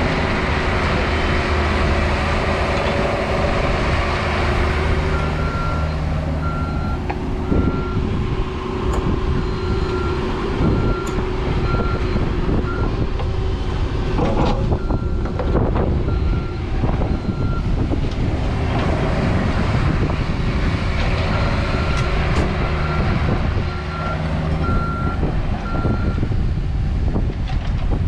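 Heavy-equipment diesel engine running steadily, with a backup alarm beeping in three spells as the machine moves in reverse.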